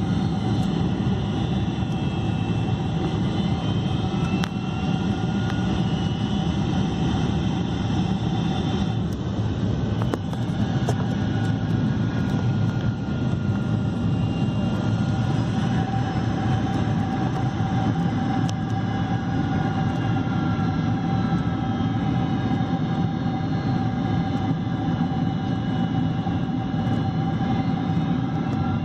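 Steady cabin roar of a Boeing 747-400 in flight, its four Pratt & Whitney PW4000 turbofans and the airflow heard from inside the cabin on a phone. A steady whine sits over the deep rumble, with faint tones slowly sliding up and down.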